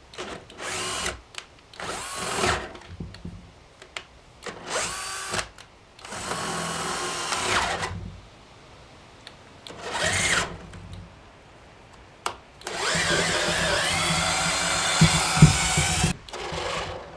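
Cheap cordless drill run in about seven trigger bursts, each rising in pitch as the motor spins up and falling as it stops; the longest burst runs about three and a half seconds. The drill is straining on a stuck part and overheating, close to burning out with smoke coming from it.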